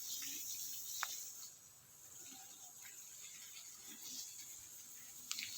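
Faint outdoor background: a steady high-pitched hiss with a single sharp click about a second in.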